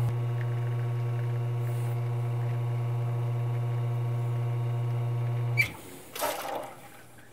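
Expobar espresso machine's pump humming steadily while a shot of espresso pours. It shuts off with a click about five and a half seconds in.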